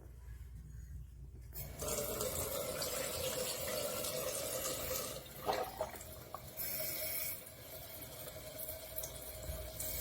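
Water from a waterfall-spout bathroom faucet running into a sink, turned on about a second and a half in and changing in flow later on. A couple of short clicks sound near the middle.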